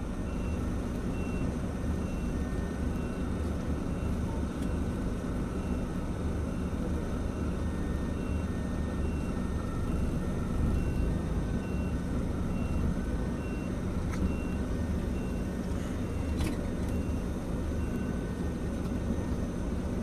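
Coach bus's diesel engine running at low speed, heard from inside the passenger cabin as a steady low rumble. A faint electronic beep repeats about every two-thirds of a second over it.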